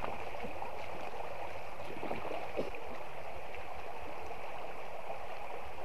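Shallow stream rippling over stones: a steady rush of running water.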